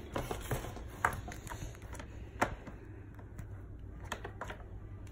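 Scattered light clicks and knocks of a baby rocker's plastic frame parts and tube being handled and pushed together, the sharpest about two and a half seconds in.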